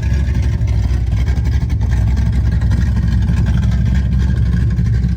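1967 Pontiac Firebird's 400-cubic-inch V8 running steadily, its deep exhaust note the loudest thing heard, with no clear revving.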